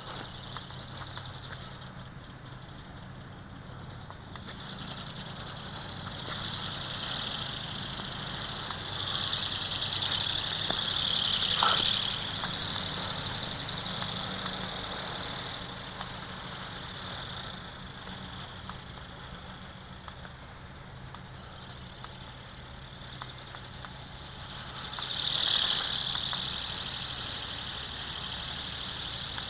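Small electric motor and gearbox of a toy RC ornithopter whining at a high pitch in flight. It grows louder as the bird comes close, around ten to twelve seconds in and again about twenty-six seconds in, over a steady low hum.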